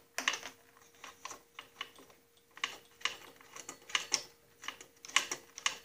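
Irregular light metallic clicks and clinks of hands working loose the brake band and its fastenings on a Snapper rear-engine rider's chain-and-sprocket drive, over a faint steady hum.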